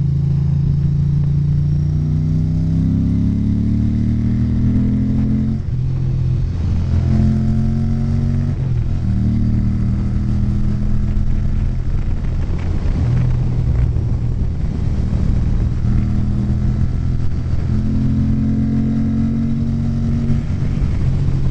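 Ducati 900SS/CR's air-cooled L-twin engine running under way, with a Staintune exhaust and an opened airbox. Its note climbs as the bike accelerates and falls back several times, over steady wind and road noise.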